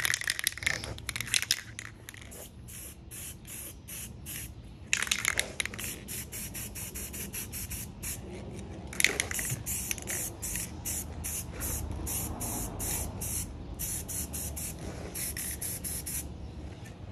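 Aerosol spray paint can sprayed in rapid short bursts, about three a second, with a few longer hisses between them, stopping shortly before the end.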